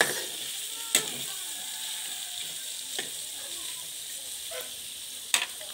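Meat pieces sizzling as they fry in a steel wok, with a metal spatula clinking against the pan four times.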